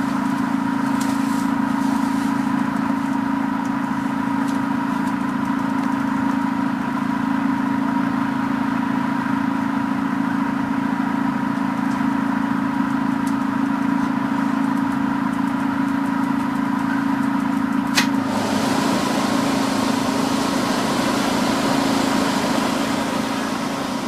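Orion V CNG transit bus running steadily: a low, even engine drone with a faint constant whine above it. About 18 seconds in there is a sharp click, and a louder hiss comes in after it and carries on.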